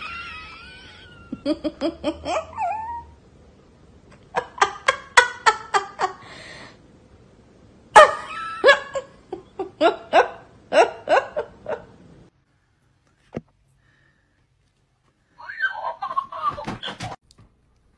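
Hearty laughter in runs of quick ha-ha bursts, about five a second, breaking off abruptly about twelve seconds in. A short high-pitched sound follows near the end.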